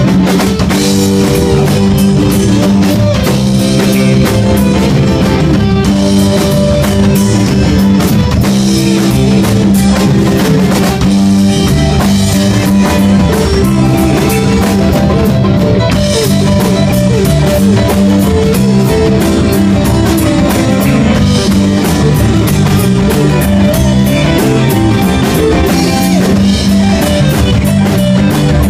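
Rock band playing, with guitar and a drum kit keeping a steady beat.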